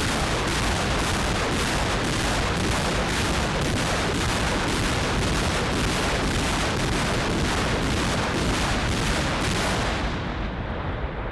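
Multiple launch rocket system firing a salvo: rockets launching one after another in rapid, even succession, merged into a continuous rushing noise that fades away about ten seconds in.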